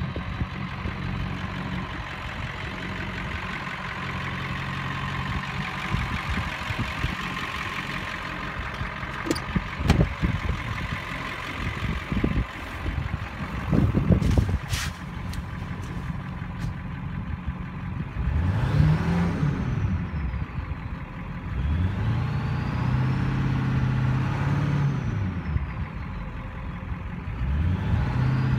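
Ford 7.3L Power Stroke V8 turbo-diesel idling steadily, with a few sharp knocks near the middle. In the second half it is revved three times, its pitch rising and falling each time, and a high whistle rises and falls along with each rev.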